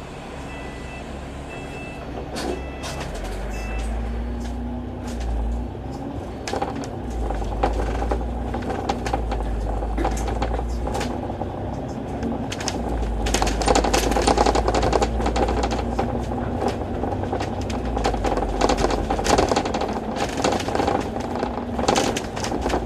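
On-board sound of an Alexander Dennis Enviro500 MMC double-decker bus: a few short beeps at the start, then the engine note rises as the bus pulls away and keeps running with a low rumble. Interior rattling grows louder and busier in the second half.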